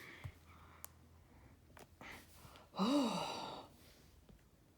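A voice lets out one drawn-out "oh", its pitch rising and then falling, about three seconds in. Before it there are only a few faint clicks.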